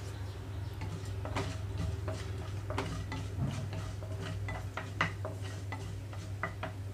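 Mustard seeds and split dals sputtering in hot oil: irregular sharp pops and crackles, a few each second, with a wooden spatula stirring in the pan. The spluttering shows the oil is hot enough, the point at which asafoetida and dried chillies go into the tempering.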